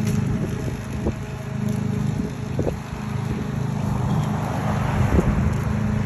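Walk-behind petrol lawn mower running steadily while cutting grass, a steady engine hum.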